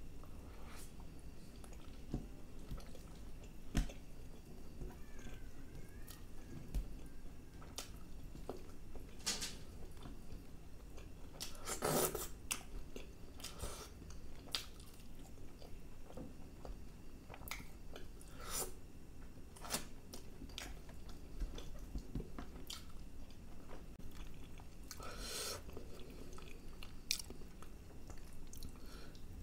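Close-miked eating sounds: chewing of chicken curry and naan by hand, with scattered wet mouth clicks and smacks. Two longer, louder hissing sounds come near the middle and again near the end.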